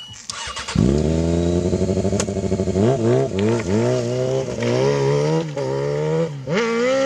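Honda CBR600 streetfighter's inline-four engine, coming in loud about a second in and running steadily, then revving up and dropping back several times as the bike pulls away.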